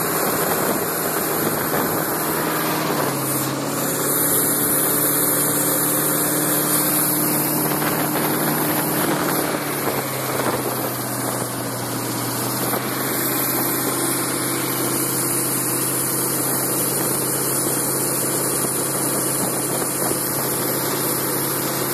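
Rebuilt Chrysler 318 poly V8 inboard of a wooden racing runabout running under way, with a steady rush of water and wind over the hull. The engine note shifts a little lower about three seconds in and changes again around ten seconds in.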